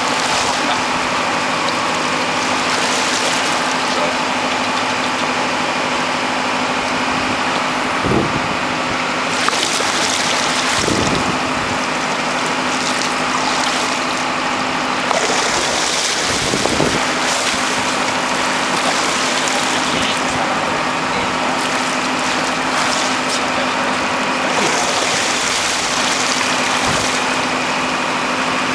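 A boat's engine running steadily with a constant hum, under a wash of wind and sea noise.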